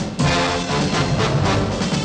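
Orchestral music led by brass, coming back in full after a brief break at the very start.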